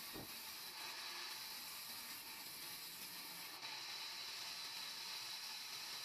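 Large sawmill band saw cutting lengthwise through a log, giving a steady high hiss. There is a brief dip about three and a half seconds in, after which the hiss is a little brighter.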